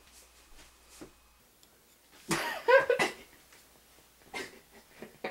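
A person's short, unintelligible vocal sound about two seconds in, with a brief noisy sound about four seconds in.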